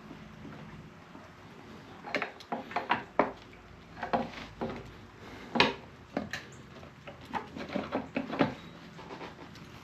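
Irregular metallic clinks and knocks, in clusters starting about two seconds in, from a motorcycle's rear wheel and brake caliper bracket being handled and shifted into alignment.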